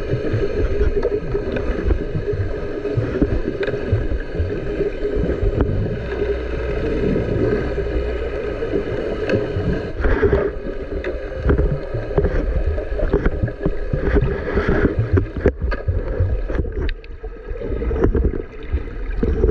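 Muffled underwater sound of a nearby boat's engine, a steady hum over a rumbling wash of water on the camera. A few sharp knocks come near the end.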